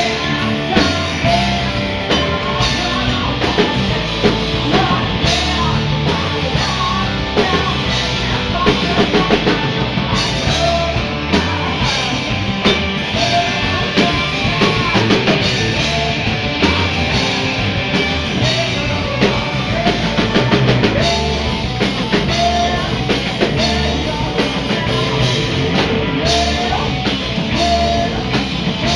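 A rock band playing: electric guitars, bass and a drum kit, with a man singing into the microphone.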